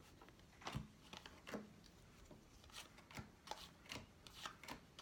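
Faint handling of baseball trading cards: short, irregular flicks and rustles, about one or two a second, as cards are slid off a stack one by one.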